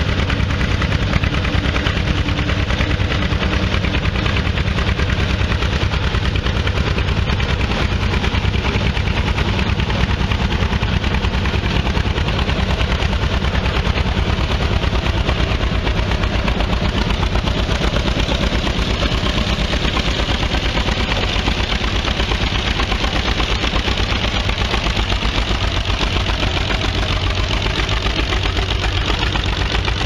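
John Deere tractor engine running steadily under load while pulling a mounted plough, its exhaust firing in a rapid, even beat.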